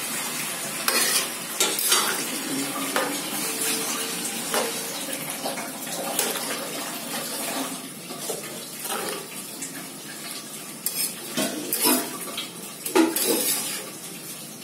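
A metal spatula stirs and scrapes cubed vegetables in a metal wok-style pan, with sharp clinks of the spatula against the pan several times, most around the first two seconds and again near the end, over a steady hiss.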